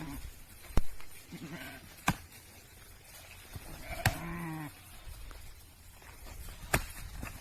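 An animal bleating twice: a short wavering bleat about a second and a half in, and a longer one about four seconds in. Several sharp clicks or knocks, the loudest just under a second in, another at about two seconds and one near the end.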